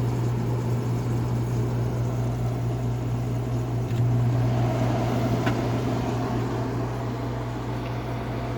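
Kenmore air conditioner running with its fan on low: a steady compressor hum under the hiss and gurgle of refrigerant flowing. The hum gets a little louder about four seconds in. The unit is running continuously, not yet reaching its set temperature.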